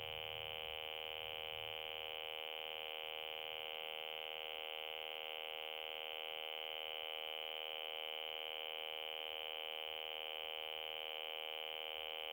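A glitching 2001 re-release Furby's speaker is stuck on one continuous, unchanging electronic drone: a strong high whine over a buzzy stack of steady tones. It is an audio glitch brought on by interrupting the toy's power at the battery compartment.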